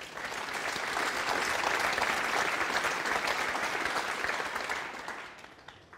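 Audience applauding a snooker break, building up at the start and dying away near the end.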